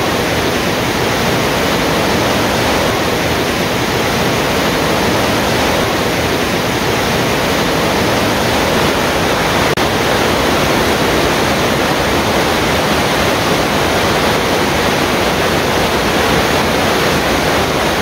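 Middle Fork of the Popo Agie River rushing over boulders into the cave mouth at The Sinks: a steady, full roar of fast-flowing water, broken for a moment about halfway through.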